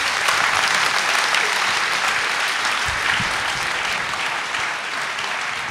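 Audience applauding, a dense, even clapping that eases off slightly near the end.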